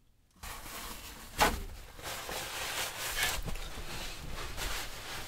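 Paper towels rustling and being handled as a spill is wiped up, with a knock about a second and a half in.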